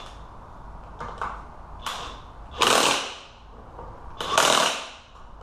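Cordless DeWalt impact gun hammering the rear wheel nuts of a quad tight through a socket extension, in two short bursts about a second and a half apart, with a couple of light clicks before them.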